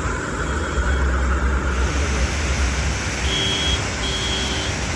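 Steady rushing noise of the Tawi River in flood after heavy rain, with a low rumble that is strongest in the first two seconds. About three seconds in come two short beeps, each about half a second long, close together.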